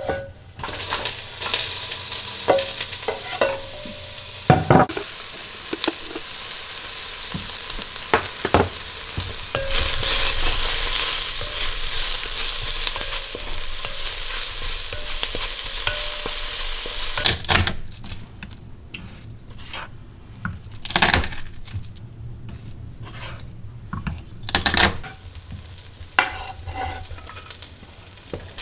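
Food sizzling in a hot pan, loudest through the middle, with sharp clicks and knocks of a utensil stirring against the pan. Near the end the sizzle drops away and a few separate knocks remain.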